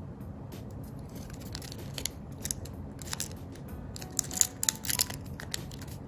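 Origami paper crinkling and crackling as fingers fold and pinch its creases, with a cluster of sharper crackles about four to five seconds in.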